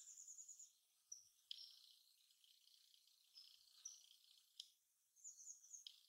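Common kingfisher calling: high, thin whistled notes, a quick run of them at the start and again near the end, with single notes between. The rapid runs are what the uploader counts as its song, the single notes as its call.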